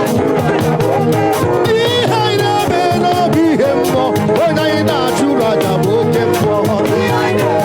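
Upbeat praise music with singing over a steady beat and percussion.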